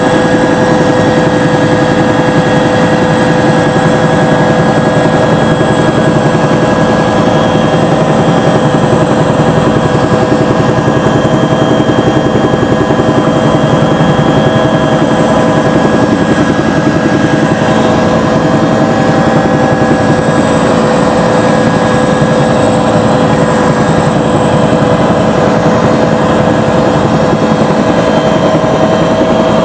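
Bell 212 helicopter in flight, its rotor and twin turbine engines running steadily, with a high, even turbine whine over the rotor noise.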